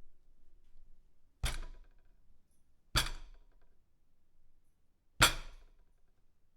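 Pounding on a dinner table: three separate blows, each a sharp thud with a short ring, the last the loudest.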